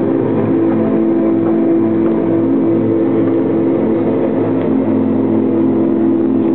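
Background music: a steady, held droning chord that runs unbroken without any clear beat.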